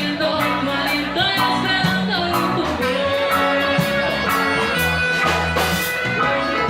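Live rock band playing, with electric guitar, bass, drums and a singing voice.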